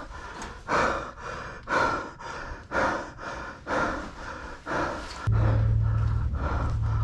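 Heavy, rhythmic breathing close to the helmet-mounted microphone, about one breath a second, from an airsoft player exerting himself. About five seconds in, a steady low hum starts suddenly and continues.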